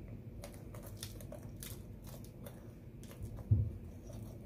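Faint scattered clicks and ticks of a small plastic jar being shaken and poked with a thin stick to sprinkle ground nuts, over a low steady hum, with one dull thump about three and a half seconds in.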